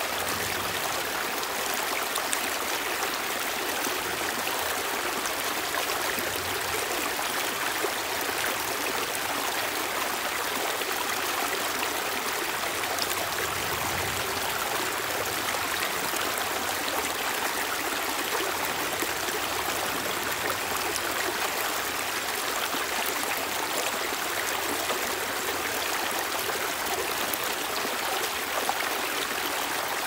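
Shallow rocky stream flowing over stones and small cascades, a steady, unbroken sound of running water.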